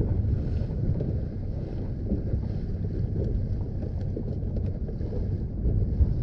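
Fishing boat's motor running steadily while trolling, a continuous low rumble with wind buffeting the microphone.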